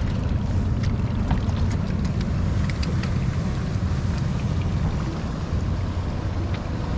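Steady low rumble of wind buffeting the microphone aboard a small boat on open water, with a few faint clicks.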